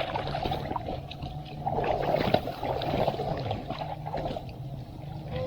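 Swimming-pool water sloshing and splashing irregularly, with a steady low hum underneath.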